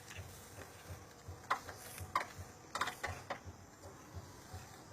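A few sharp clicks and knocks, about four of them, spaced through the middle of the stretch over a faint low rumble.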